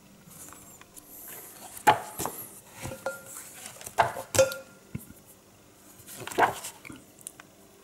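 Pages of a large hardcover comic book being turned and handled: paper rustling with several sharp taps and knocks, the loudest about two and four seconds in.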